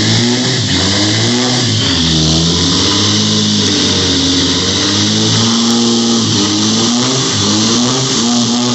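Dodge pickup's 5.9 Cummins diesel engine revving hard during a burnout, its pitch rising and falling over and over as the throttle is worked. A steady hiss runs underneath from the rear tires spinning on concrete.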